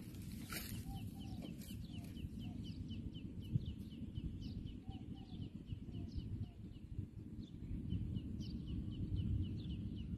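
Caged male watercock calling: a long, fast series of short repeated clucking notes, about four a second, over a low rumble of wind on the microphone.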